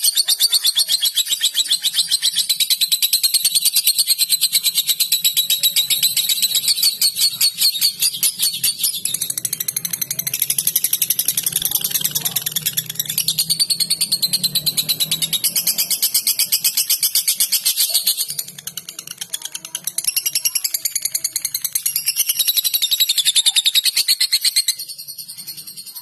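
Lutino lovebird's 'ngekek', a long, fast chattering trill held very close to the microphone. It runs on almost unbroken and stops about a second before the end.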